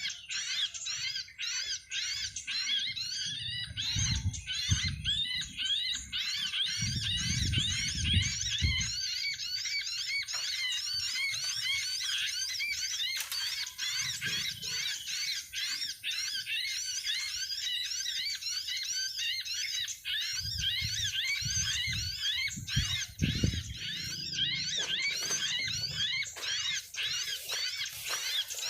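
Small birds chirping rapidly and continuously, many high-pitched notes a second overlapping in a dense chatter, with low thuds and rumbling in the middle and again near the end.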